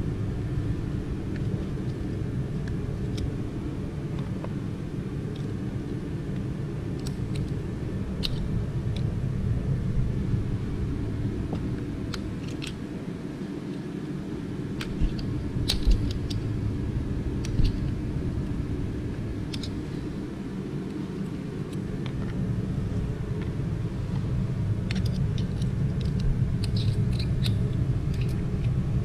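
Steady low rumble with scattered light metallic clicks and taps from picks working at a snap ring and retainer on steel transmission clutch parts, coming in small clusters.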